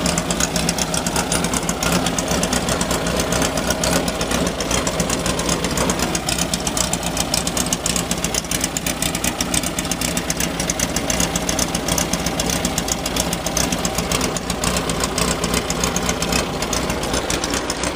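A Volkswagen-based rail buggy's engine running steadily, a dense, even chugging with no big revs. The engine is freshly built and still being broken in.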